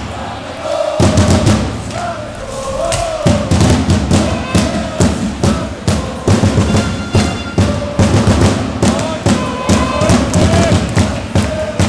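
Ice hockey fans chanting in unison to a steady drum beat. The drum drops out briefly and comes back about a second in.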